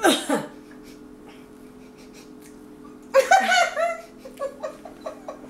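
A short falling groan of disgust, then about three seconds in a burst of laughter that breaks into choppy giggles and trails off, over a faint steady room hum.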